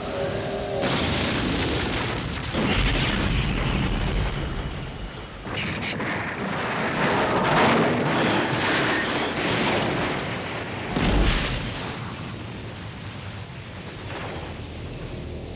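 Explosion sound effects of an aircraft crashing into a forest: several heavy booms with deep rumbling, the last about eleven seconds in, then a fading rumble. A steady rain-like hiss runs underneath.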